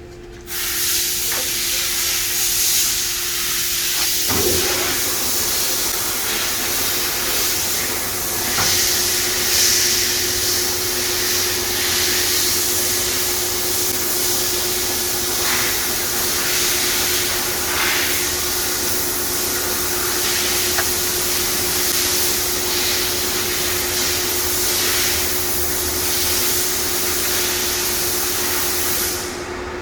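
Engine lathe running with a loud, steady hiss like rushing air or spray. The hiss switches on just after the start and cuts off abruptly near the end. A steady hum joins about four seconds in, right after a short knock.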